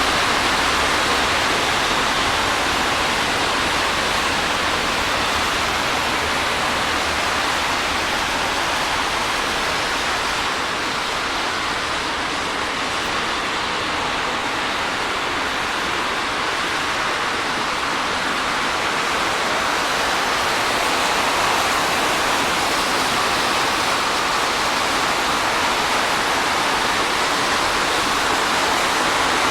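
Steady hiss of water spray from tyres driving on a rain-soaked road, with rain on the pavement. It eases slightly around the middle and swells again later.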